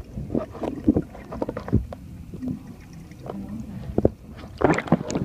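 Water splashing and sloshing in irregular strokes, with a louder splash near the end.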